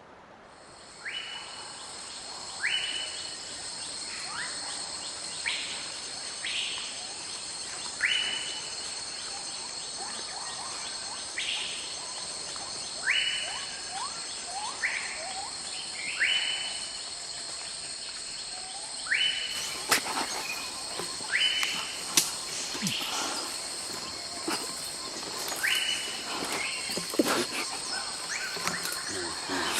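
Forest ambience: a steady high-pitched insect chorus with short animal calls, each rising in pitch, repeated every second or two. About two-thirds of the way in, a hiss with scattered crackles joins.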